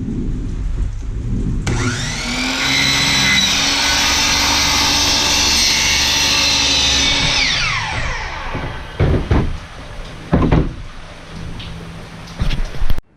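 Electric power saw spinning up, running steadily for about five seconds as it cuts through a board, then winding down. A few sharp knocks follow.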